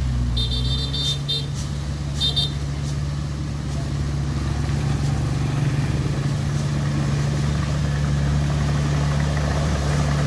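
Heavy diesel engine running steadily, growing a little louder in the second half. Near the start come two short bursts of rapid high-pitched beeps.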